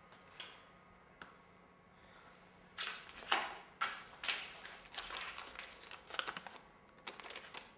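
Cloth rustling and fumbling as hands search through clothing and jeans pockets close by, a run of scrapes and rustles starting about three seconds in, after a few faint clicks.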